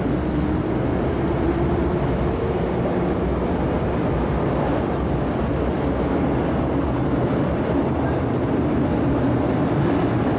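MTR metro train running through the station without stopping, heard from behind platform screen doors. A steady rumble of wheels and running gear, with a faint whine from the traction motors.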